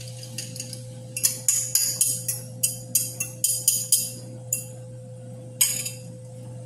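A metal fork scraping and tapping beaten egg out of a ceramic bowl: a quick, irregular run of sharp clinks that eases off after about four seconds, with one more clink near the end. A steady low hum runs underneath.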